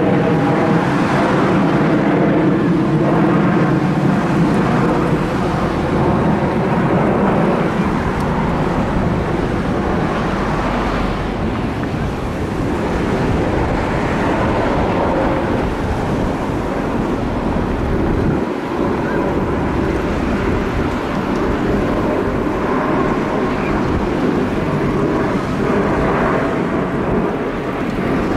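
Jet roar from a formation of Kawasaki T-4 jet trainers flying overhead, a steady rumble with wind buffeting the microphone.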